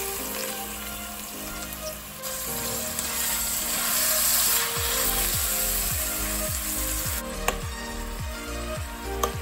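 Raw ground beef sizzling in hot oil in a stainless steel saucepan while it is broken up and stirred with a fork, with two sharp clicks of the fork against the pan near the end.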